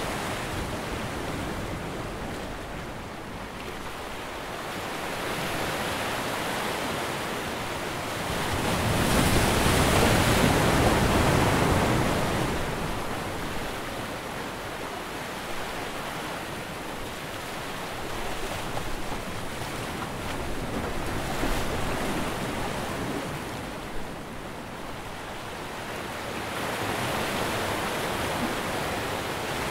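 Sea waves washing onto a shore, a steady rushing surf that swells and eases slowly, loudest about ten seconds in.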